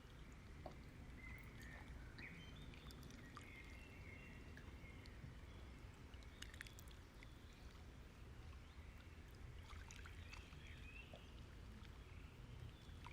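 Near silence: faint room tone, with a few soft clicks and faint high chirps.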